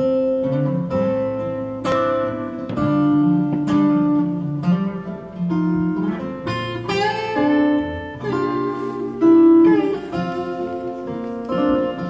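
Two acoustic guitars playing a song's instrumental intro: strummed chords struck about once a second, with notes left ringing between them.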